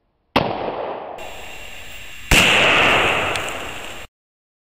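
Two .223 rifle shots about two seconds apart, the second louder. Each is a sharp crack followed by a long fading echo, and the sound cuts off abruptly.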